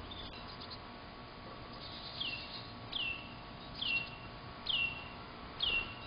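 A songbird singing a series of five whistled notes, each sliding down in pitch, about one a second.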